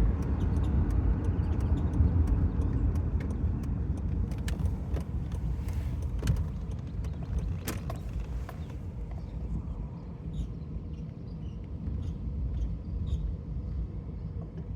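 A 2008 Dodge Nitro rolling and slowing, with low road rumble fading as it slows and a run of short, sharp chirps and ticks from the driver's-side wheel when the brake is applied. The cause is unknown; brakes or a wheel bearing are suspected.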